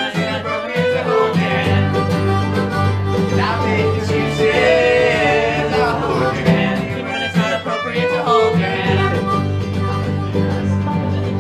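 Acoustic bluegrass string band playing an instrumental passage: fiddle with banjo and acoustic guitars.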